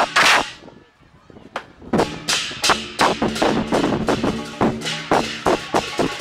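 Lion dance percussion: a Chinese drum with clashing cymbals beating hard, breaking off about half a second in, then picking up again about two seconds in with a quick, steady beat.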